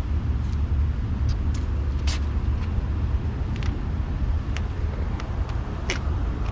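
Steady low wind rumble on the microphone, with scattered sharp crackles and ticks, the loudest about two seconds in.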